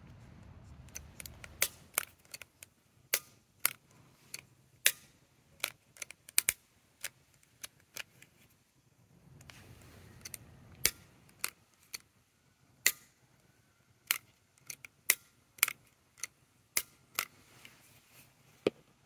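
Black Cat Magnum Flasher strobe fireworks going off in a long run of sharp pops at uneven intervals, some of them loud.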